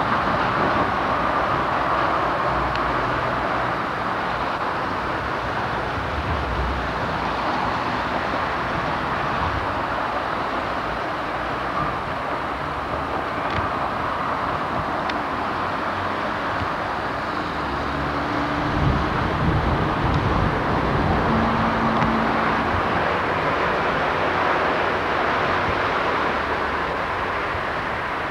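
Steady outdoor roar of road traffic and wind, with heavier low rumbles of passing vehicles about six seconds in and again from about eighteen to twenty-two seconds in.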